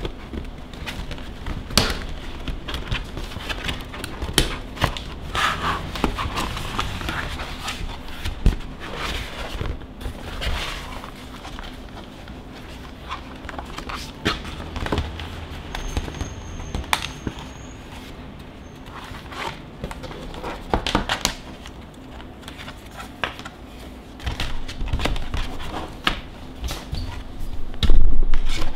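Hands handling the stiff white plastic panels of a folding mini photo studio box: irregular rustling, scraping and sharp clicks as the panels flex, fold and knock together, with a heavier thump near the end.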